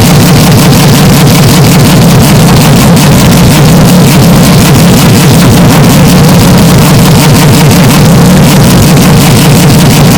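Engine-like drone, heavily distorted and clipped at full volume, holding steady with a rapid pulsing and no rise or fall in pitch.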